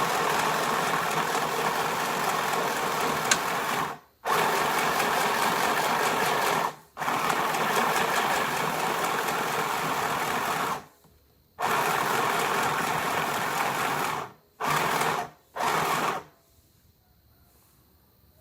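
Mini portable sewing machine running in bursts, stopping and starting again several times. The last two runs are short, and it stops for good near the end.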